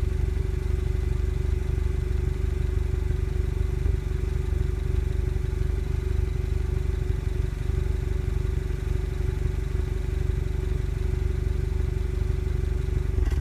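Citroën DS3 Racing's 1.6-litre turbocharged four-cylinder idling steadily through its stock exhaust.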